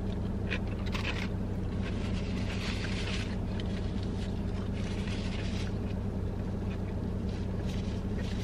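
Steady low hum of a parked car running, with faint chewing and napkin rustles over it.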